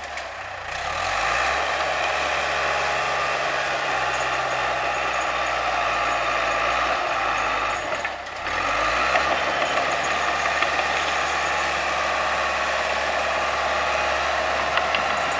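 Bulldozer's diesel engine running steadily under load, its pitch sagging and climbing back about a second in and again around eight seconds in.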